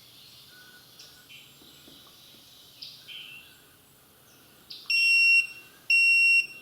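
Garage door opener keypad beeping after star and pound are held for five seconds: two loud, steady, high-pitched beeps about a second apart near the end, each about half a second long. A third beep follows just after. The beeps go with the keypad's three red blinks in response to the button hold.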